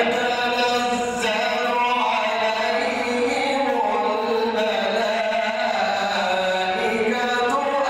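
A man chanting Quran recitation in the melodic tajweed style, drawing out long held notes with slow pitch turns through the whole stretch.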